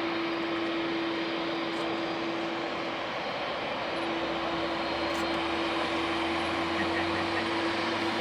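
Boeing 767-300ER's twin jet engines running at taxi power as the airliner rolls along the taxiway: a steady rushing noise with a held hum. A low rumble comes in about halfway through.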